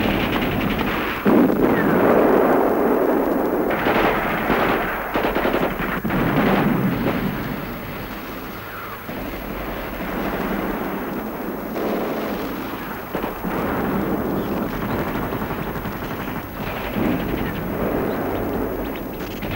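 Battle gunfire: dense, rapid machine-gun fire and shots, swelling into louder surges about a second in, around four and six seconds, and again later on.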